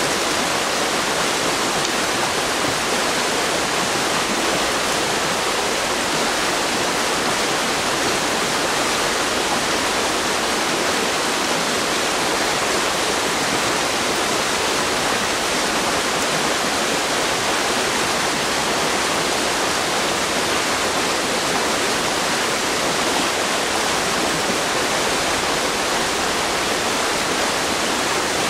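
River water rushing over rocks in shallow rapids: a steady, even rush with no change in level.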